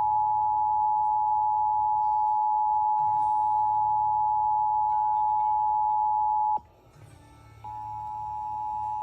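Emergency Alert System two-tone attention signal, a steady two-note alarm tone. It cuts off about six and a half seconds in, then after a second's pause starts again, growing louder.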